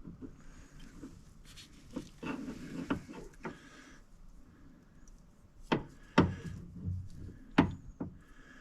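A series of sharp knocks with rubbing and scraping between them; three loud knocks in the second half are the loudest sounds.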